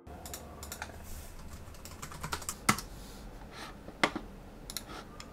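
Typing on a computer keyboard and clicking a mouse: irregular light clicks, with a few louder single clicks and a quick cluster near the end.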